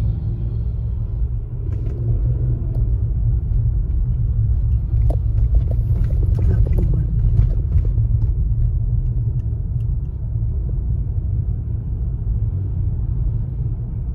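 Steady low rumble of road and engine noise inside a moving car's cabin, with a few faint clicks around the middle.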